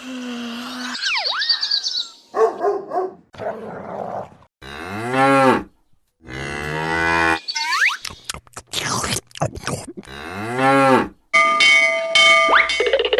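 Cows mooing: two long moos, each rising and falling in pitch, among other short sound clips that start and stop abruptly.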